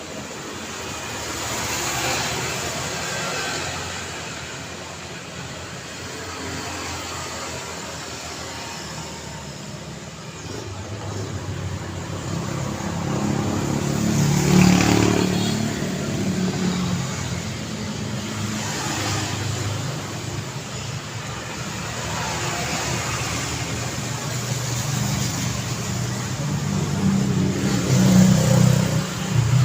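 Road traffic: a steady engine hum with vehicles passing one after another, the loudest passes about halfway through and near the end.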